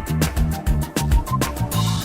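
Electronic background music with a steady driving beat and bass line, with a rising swell near the end.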